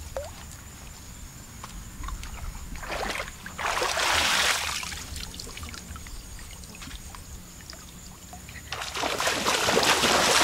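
Shallow water sloshing and splashing as people wade and handle bamboo fish traps in it. There is one burst of splashing about four seconds in, and steady splashing starts near the end as they wade quickly through the water.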